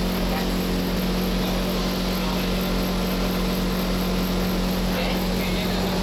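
Steady electrical hum of a stopped NS-74 metro car, with the passenger doors sliding shut about five seconds in.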